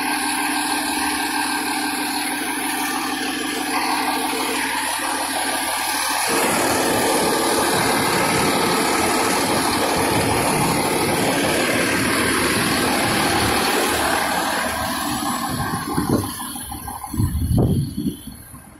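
Fire engine's diesel engine running close by: a steady, even-pitched hum that turns louder and rougher about six seconds in, with a couple of louder bumps near the end.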